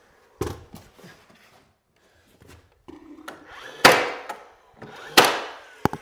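Cordless trim nailer firing nails through baseboard into the wall: three sharp shots, about 0.4, 3.9 and 5.2 seconds in, the later two the loudest, with a short click just before the end.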